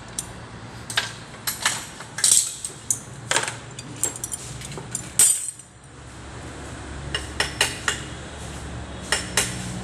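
Metal objects clinking and tapping together in irregular sharp knocks, about twenty over the stretch, with a brief lull midway, over a low steady hum.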